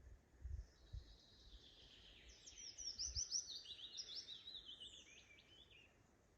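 A songbird sings one phrase, a quick run of short notes that steps down in pitch, over a faint steady outdoor hiss. A few soft low thumps come in the first few seconds.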